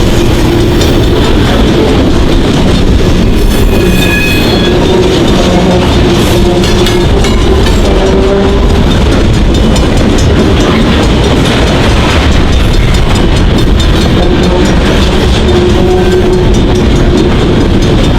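Freight train's railcars rolling past close by: a loud, steady rumble of steel wheels on rail.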